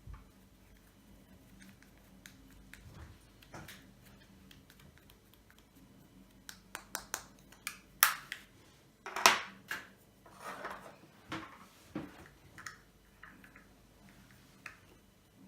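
White fluffy slime being kneaded and stretched by hand as eyeshadow is mixed in, giving sticky clicks and small air-pocket pops. They are sparse at first, then come in a busy run through the middle, with two sharp loud pops a little past halfway.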